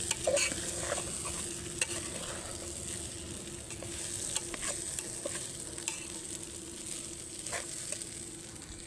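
Long steel spoon stirring thick khichdi in a metal pot: scattered scrapes and taps of the spoon against the pot over a steady hiss.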